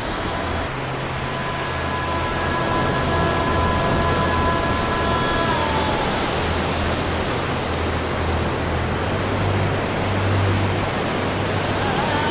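Ocean surf on a sandy beach, a steady rushing wash of breaking waves, with a low steady hum and a few faint held tones over it.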